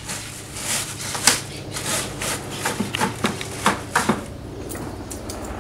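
A series of irregular short clicks and knocks over a steady low hum.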